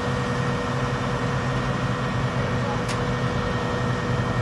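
Boom truck's engine running steadily as its crane lowers a lattice radio tower, with a steady hum above it and a single click about three seconds in.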